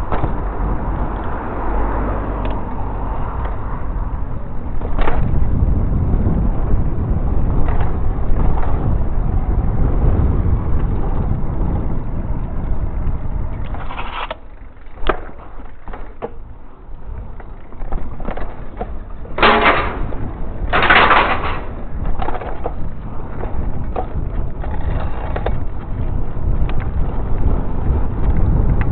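Mountain bike ridden over wet paving blocks: steady rumble of the tyres and wind buffeting the camera microphone, with frequent rattling knocks from the bumps. It eases briefly about halfway, then two louder rushing bursts of about a second each come a little past two-thirds through.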